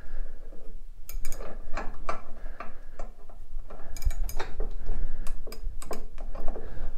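Hand tools clicking and clinking irregularly, metal on metal: a ratchet and stud puller fitted to a rusted cylinder stud in an aluminum crankcase, working it loose.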